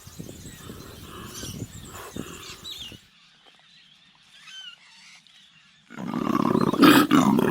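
Koala bellowing, a loud, low, rough grunting that starts about six seconds in. Before it there is quiet rustling with small bird chirps.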